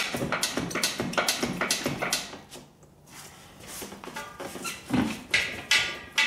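Rapid metallic clinking and knocking from a shop engine hoist and its lifting chain as it takes up the weight of the engine, then a quieter pause, and near the end a few sharp clanks with short metallic squeals.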